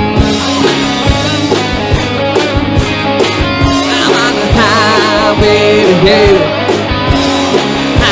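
Live rock band playing: electric guitars, bass and drum kit, with drum hits keeping a steady beat.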